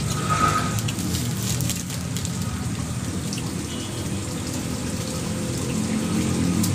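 Steady splash of running water pouring into a garden fish pond, with a few light clicks in the first couple of seconds.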